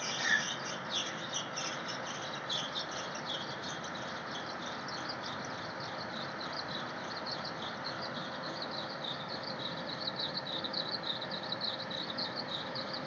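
Many birds chirping in quick, overlapping high calls, busier in the second half, over a steady background noise.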